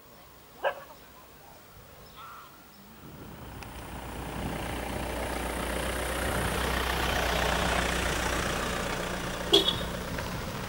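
A dog barks once near the start. Then the noise of a passing vehicle, with a low engine hum, swells over a few seconds and slowly fades, and a single sharp click comes near the end.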